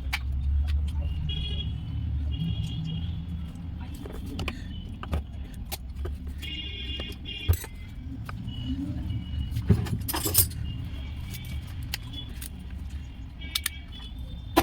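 Mahindra Bolero Neo's diesel engine running steadily, with scattered metallic clinks and short ringing taps over it.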